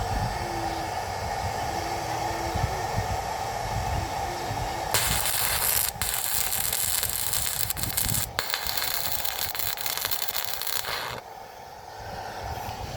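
Stick-welding arc crackling and sizzling as a rod is run, starting about five seconds in and lasting about six seconds, with two brief breaks where the arc drops, then cutting off suddenly. A steady background hum runs underneath.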